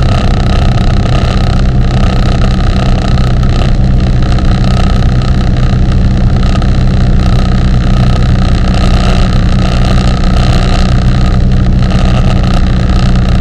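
Piper PA-28 light aircraft's piston engine and propeller running at a steady cruise setting, a loud, even drone heard inside the cabin.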